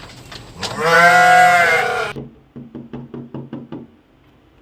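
A goat bleating once, a loud call that rises and falls in pitch, followed by a quick run of about eight light knocks.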